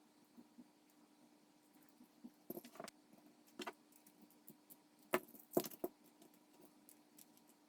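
Small 3D-printed plastic parts and M3 nuts clicking and rattling as they are handled during assembly of a rotary switch: a few separate clicks and short clusters of clicks, the loudest a little over halfway through.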